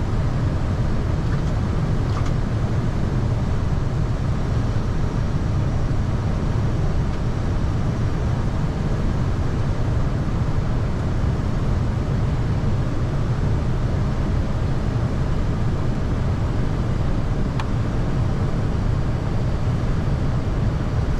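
Steady, low in-flight rumble of an Airbus A320 on approach, heard from inside the cockpit.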